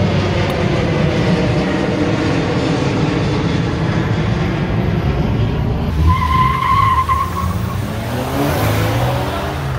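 Twin-engine jet airliner climbing overhead, its engine sound slowly falling in pitch. About six seconds in, after a cut, a car's tyres squeal briefly and its engine revs up, rising in pitch as it drives past.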